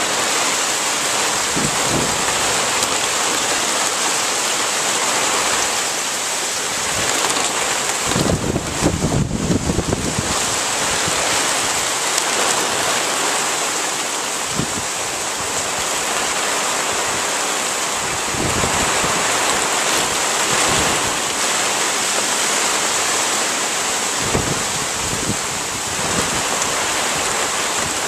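Hurricane wind and heavy rain: a steady rush of driving rain and wind through the trees. Gusts buffet the microphone with a low rumble for about two seconds around eight seconds in, and briefly a few more times.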